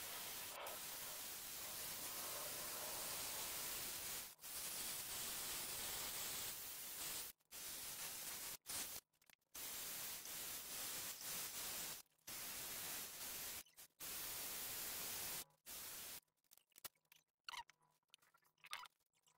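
Cordless drill running while spinning a motorcycle engine valve by its stem, a steady noisy whir. It stops and restarts several times, and gives way to scattered short sounds near the end.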